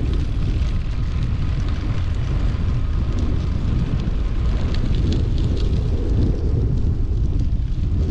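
Wind buffeting the camera microphone of a moving road bike: a steady, loud low rumble, with a few faint short high ticks about three and five seconds in.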